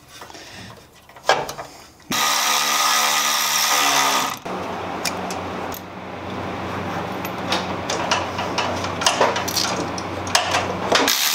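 A power tool runs loud for about two seconds with a falling pitch, followed by a steadier mechanical hum with scattered clicks and knocks.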